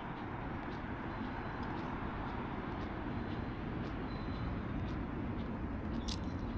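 Steady background rumble and hiss, with faint scattered ticks and a sharper click about six seconds in.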